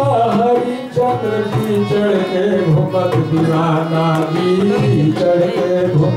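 Devotional bhajan music: tabla strokes under long, gliding melodic notes, with the lead singer's voice.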